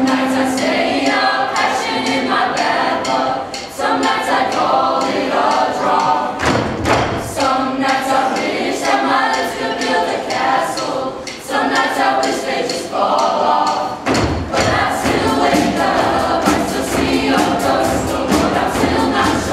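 Mixed show choir of boys' and girls' voices singing together, with a steady beat of knocks under the voices and a fuller low end coming in about six seconds in.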